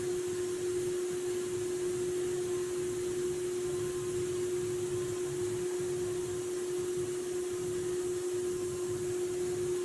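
Powder-coating spray gun blowing primer powder: a steady airy hiss over a constant hum.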